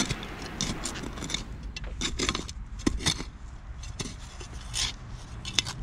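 Small spade digging into stony soil: irregular scrapes and crunches of the blade in dirt and grit.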